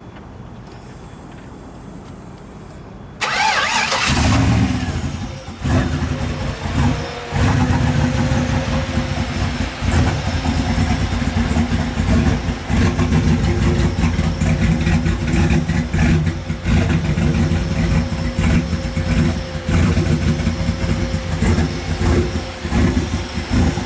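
Engine of a GMC Sierra freshly fitted with a turbo kit and not yet tuned, cranking and then firing up about three seconds in. It then runs steadily, its level wavering unevenly.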